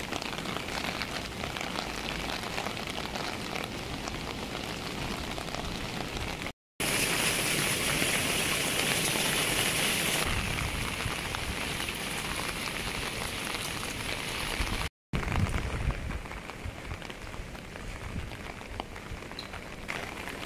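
Steady rain falling and splashing on the ground. It is louder and hissier for a few seconds after a brief dropout, then quieter after a second short dropout.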